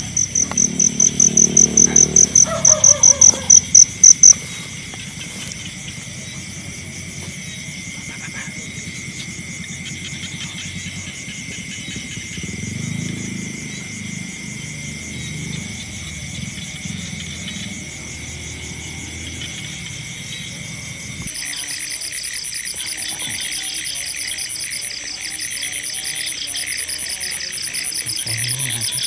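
Night chorus of crickets and other insects trilling steadily over rice paddies. A nearby insect chirps loudly at about four pulses a second, growing louder for the first four seconds before stopping abruptly. The mix of trills shifts about two-thirds of the way through.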